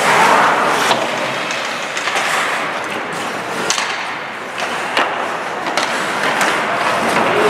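Ice hockey skate blades scraping and carving on rink ice during play, with several sharp clacks of sticks and puck striking.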